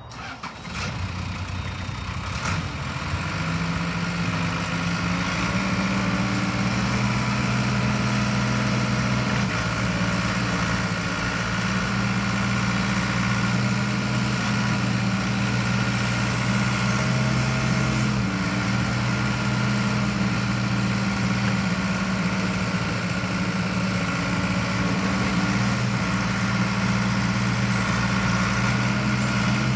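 Case 1845C skid steer's diesel engine running steadily. It comes up a little in speed and loudness over the first few seconds, then holds an even note.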